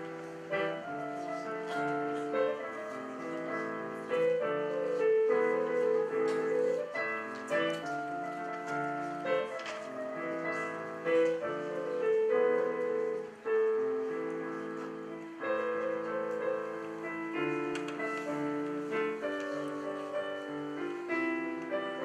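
Solo piano piece played on a digital piano: a flowing melody over chords, with a brief break about halfway through.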